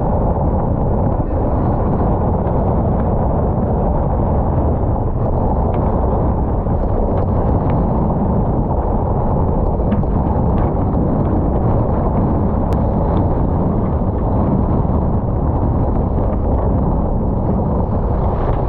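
Strong wind of about 25 knots buffeting a GoPro's microphone aboard a sailing yacht: a loud, steady, low rumble with no let-up, with a few faint clicks on top.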